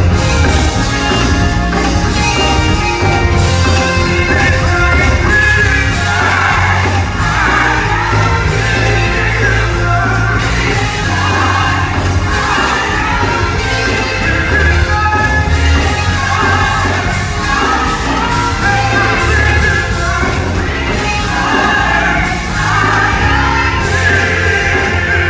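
Gospel song with a heavy, steady bass line; a singing voice comes in strongly about six seconds in and carries on over the music.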